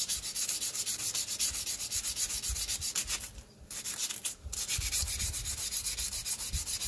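Hand scrubbing rust off a four-stroke lawn mower's flywheel rim at the magnet, rubbing it down to bare metal in quick back-and-forth strokes, about six a second, with two short pauses a little after the middle.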